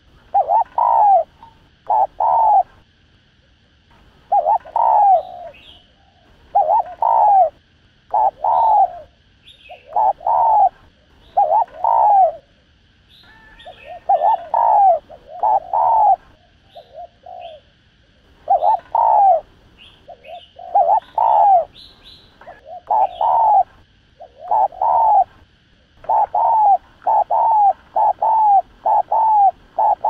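Spotted dove giving its excited 'thúc gù' cooing: short coos repeated in pairs and threes with pauses between, running into a fast string of about two coos a second near the end.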